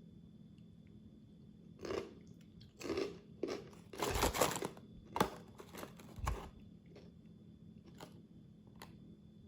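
Someone biting into and chewing a crunchy snack: a cluster of crisp crunches starting about two seconds in, then a few faint clicks.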